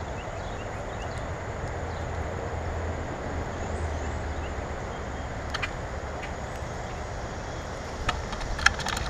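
Steady low background rumble, with one sharp click about five and a half seconds in and a quick cluster of clicks and taps near the end.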